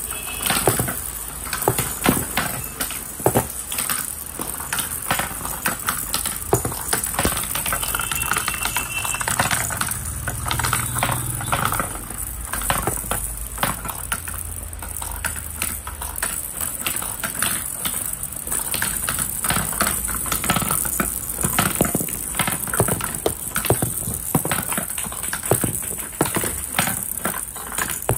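Small plastic balls rolling and clattering down the spiral plastic tracks of a stacked ball-ramp toy: a dense, uneven run of small clicks and rattles.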